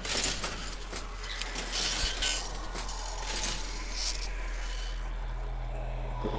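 Crunching and smashing sound effects of a bus being chewed and swallowed by a monster: a sudden loud burst, then several more crunches over the next four seconds. From about five seconds in, a steady low hum takes over.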